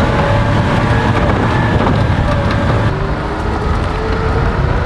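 Small utility truck driving over a grassy dirt track, heard from inside the cab: the engine runs steadily under a loud, even driving noise.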